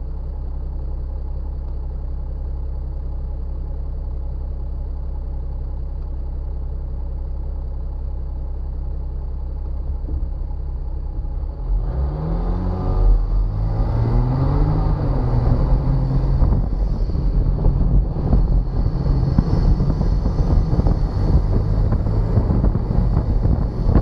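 Jeep Wrangler engine idling steadily. About halfway through it revs up, the pitch rising and falling a couple of times as the Jeep pulls away. It then runs louder and rougher while driving along the dirt trail.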